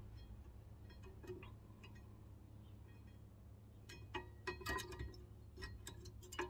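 Faint metallic clicks and taps of a rear brake pad and its steel clips being worked into the caliper bracket, with a cluster of them from about four seconds in, over a low steady hum.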